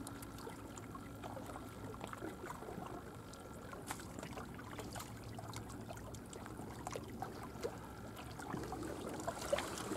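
Faint steady outdoor background noise with a low hum and a few scattered light clicks.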